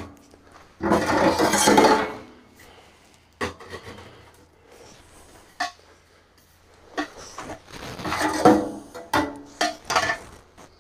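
Metal stovepipe sections being handled and fitted onto a wood stove: a scraping rub about a second in, then scattered metallic clinks and knocks, busiest in the last few seconds.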